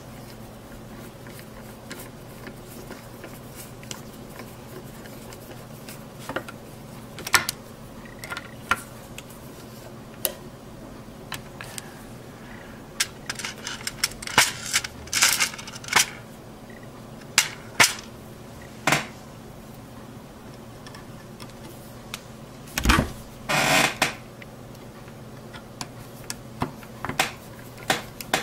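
Small Phillips screwdriver and screws being worked into the metal heatsink assembly of a Radeon HD 4870 video card: scattered, irregular clicks and light taps of tool on screw and metal. Toward the end comes a louder knock and about a second of handling noise.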